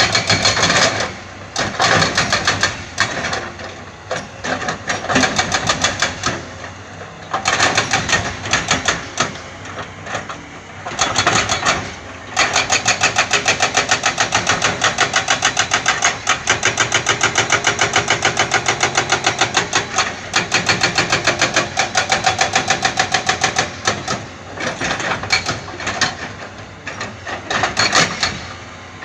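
Heavy construction machinery at work: a diesel engine running with a fast, regular knocking, about four to five knocks a second, that comes and goes in stretches.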